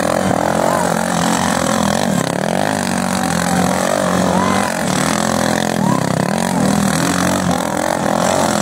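Motor vehicle engines running hard, their pitch rising and falling with revving over a steady engine drone.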